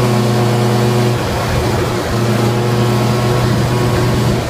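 Quad bike (ATV) engine running at a steady speed while being ridden. Its even note breaks up for about a second shortly after the start, then settles back to steady.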